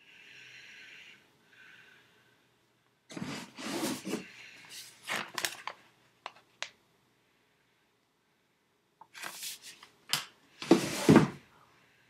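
Handling noise from a paperback cookbook: rustling, scraping and knocks as it is lifted close to the microphone and later lowered, the loudest knocks near the end. A faint high squeak sounds at the very start.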